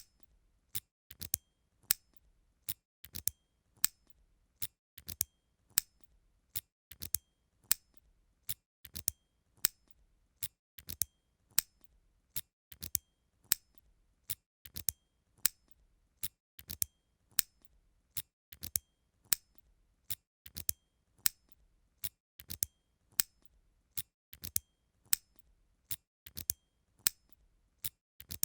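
A door lock clicking shut over and over: short, sharp metallic clicks, about two a second, often in close pairs, with quiet between them.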